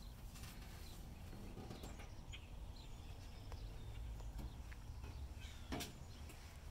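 Faint outdoor background with a low rumble, scattered light clicks and a few short high chirps, with one sharper click just before the end.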